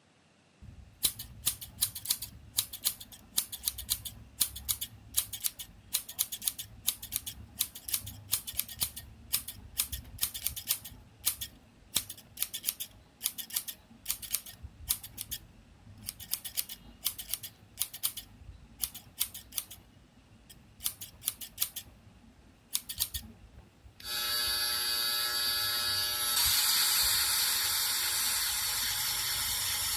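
Barber's scissors snipping in quick repeated cuts, about two a second, a Foley recreation of a haircut. About 24 seconds in they stop and a steady electric whir starts, a barber's electric appliance such as a hair clipper or dryer, stepping up a little soon after.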